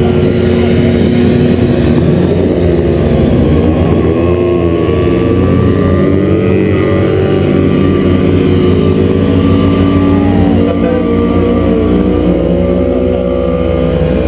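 Several sport motorcycle engines revving hard at once during burnouts, their pitches rising and falling as the riders work the throttles.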